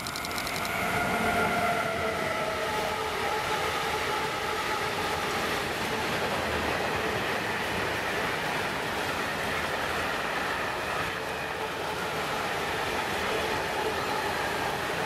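Freight train of tank wagons hauled by a Siemens Vectron electric locomotive passing close by. It is loudest as the locomotive goes by about two seconds in, with a tone falling slightly in pitch, and then the wagons keep rolling by over the rails.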